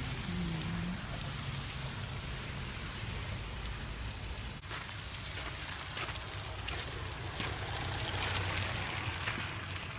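A steady outdoor hiss with scattered clicks and a low hum underneath; the hiss grows louder about eight seconds in.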